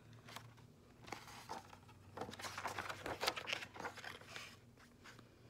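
Paper rustling with small clicks as a page of a hardcover picture book is turned and the book is handled, mostly in the middle few seconds.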